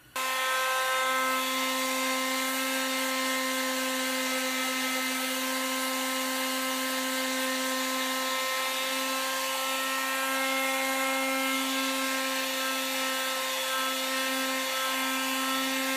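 Porter-Cable square-pad palm sander running steadily at a constant pitch, its pad sanding the rounded edge of a wooden chair arm to sharpen it.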